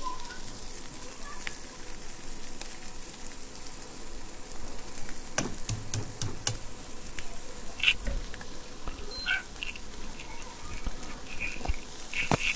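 Vegetable noodles frying with a faint, steady sizzle in a nonstick frying pan as the boiled noodles are tipped in and turned. A few sharp knocks against the pan from the wooden spatula and plastic colander come in a cluster about halfway through, with another near the end.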